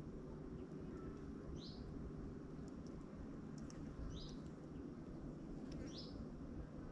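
A small bird chirps three times, short high calls a couple of seconds apart, over a steady low background hum.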